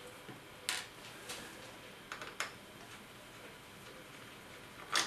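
A handful of light, sharp clicks and taps, spaced irregularly: a small Phillips screwdriver and tiny screws working against a laptop's plastic and metal screen frame.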